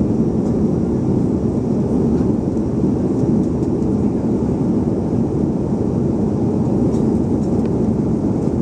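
Steady cabin noise inside a Boeing 737-300 in the climb after takeoff: the hum of its CFM56-3 engines and the rush of air past the fuselage, low and even throughout.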